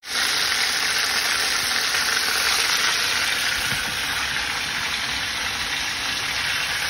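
Fish deep-frying in hot oil: a steady, loud sizzle.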